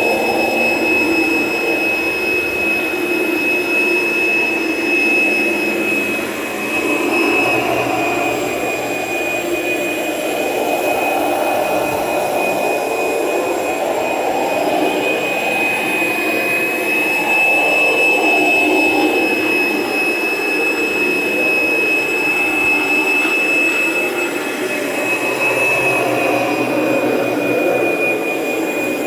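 Kirby Generation 3 upright vacuum running with its carpet shampooer attached, shampooing carpet: a steady high motor whine that wavers slightly in pitch, over a rushing noise that swells and fades every few seconds.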